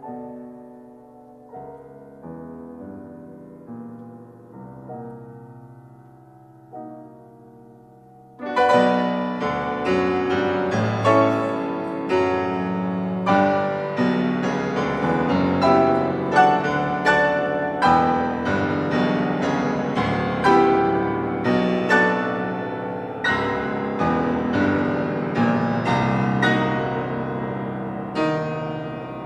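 Solo piano music: a soft, muffled passage, then about eight seconds in an abrupt switch to a loud, bright passage of many struck chords and runs.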